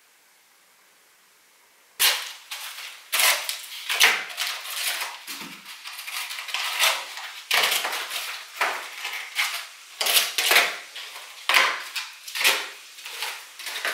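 Plant pots and seedling trays being picked up and stacked on a table: an irregular run of sharp clatters and knocks, starting about two seconds in after a faint hiss.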